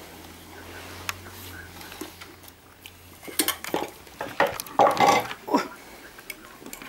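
Stainless steel food bowl clattering and scraping on a wooden floor as a dog eats from it. A few scattered clinks come first, then a busy run of knocks and scrapes around the middle.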